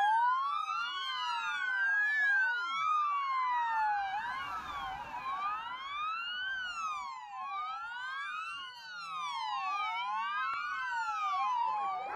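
Several emergency-vehicle sirens wailing at once, each sweeping up and down in pitch out of step with the others.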